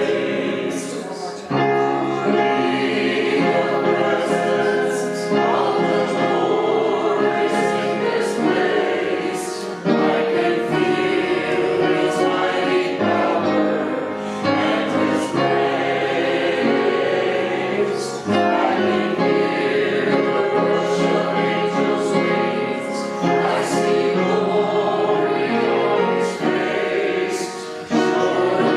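A group of voices singing a hymn together, in long held phrases with a short break roughly every eight seconds.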